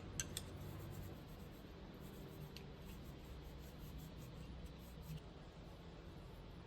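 Faint scrubbing of dishes with a sponge, with a few light clicks of crockery.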